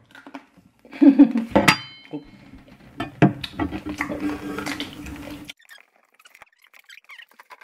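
A metal knife clinking and scraping against a plate while a crispy fried pig's head is cut apart, with one sharp ringing clink about a second and a half in.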